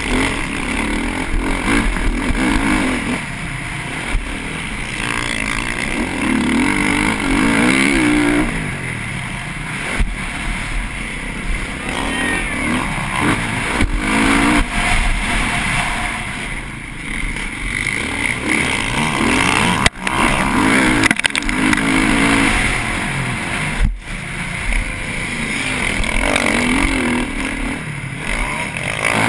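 TM MX450Fi's single-cylinder four-stroke engine racing around a motocross track, revving up and dropping back over and over as the throttle is opened and closed, heard from the bike itself. The sound cuts out sharply for a moment twice in the second half.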